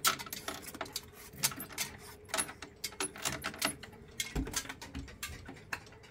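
Brass weight chain of a Seth Thomas chain-driven grandfather clock rattling and clicking in quick, irregular taps as it is handled after getting stuck, with a low thump about four seconds in.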